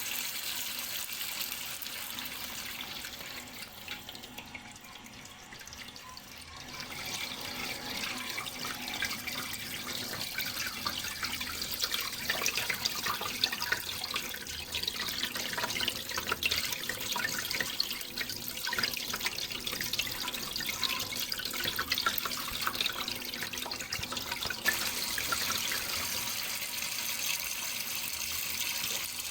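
Running, splashing water with many small drips and splashes. It turns softer for a few seconds early on, then splashes more busily from about seven seconds in.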